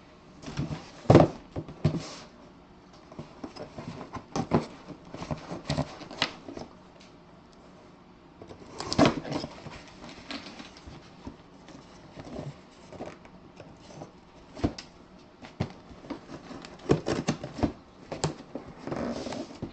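Utility knife slicing through packing tape and cardboard on a shipping case, with irregular knocks, scrapes and rustles of the cardboard being handled.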